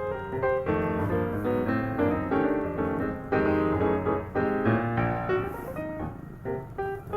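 Background piano music: a light melody of quick, separate notes over lower chords.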